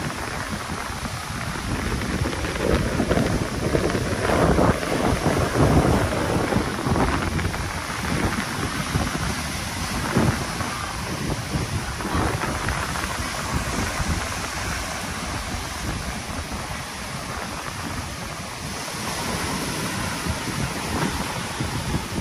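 Sea waves breaking and foaming up a sandy beach, with wind on the microphone. The wash swells louder a few seconds in and again around halfway.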